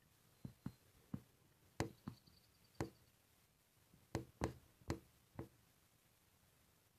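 About a dozen light, irregular knocks and taps, in a loose run early on and a closer cluster of five about four seconds in.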